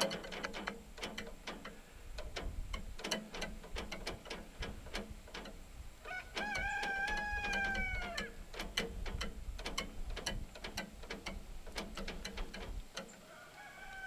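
The hand-crank height winch of a Woodland Mills HM126 portable sawmill clicks repeatedly as the saw head is lowered. A rooster crows once, about six seconds in, for about two seconds.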